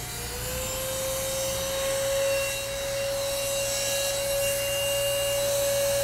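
Oraimo cordless handheld vacuum switched on and running: its motor's steady high whine over a rush of air. The whine finishes rising to speed in the first half second.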